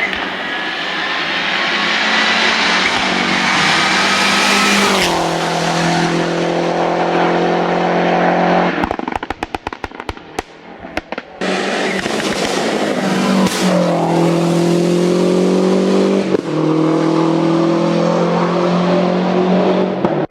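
Lancia Delta Integrale's turbocharged four-cylinder engine under hard acceleration, revving up and dropping at each gear change. About nine seconds in the engine goes quieter for a couple of seconds with a rapid string of sharp pops. It then pulls hard again through more shifts.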